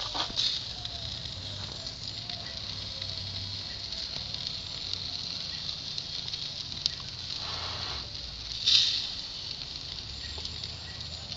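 Sauce-basted burger patties sizzling on a charcoal grill: a steady hiss with small crackles, and a brief louder hiss about nine seconds in.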